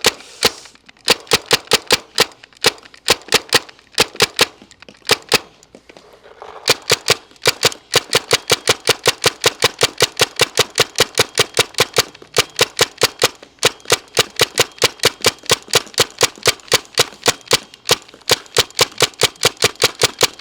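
Tippmann TMC mechanical paintball marker firing a long, rapid string of semi-automatic shots, about four to five a second, with a couple of short pauses in the first few seconds.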